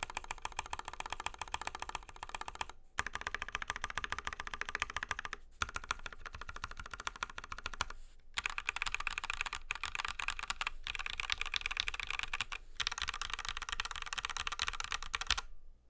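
Fast typing on a mechanical keyboard with Gateron Yellow linear switches and double-shot PBT keycaps: dense runs of key clacks broken by brief pauses, stopping shortly before the end.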